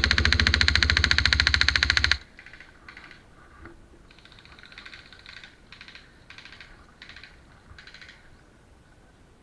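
Airsoft gun firing a long, rapid full-auto burst of evenly spaced shots that stops about two seconds in, followed by several short, fainter bursts of fire.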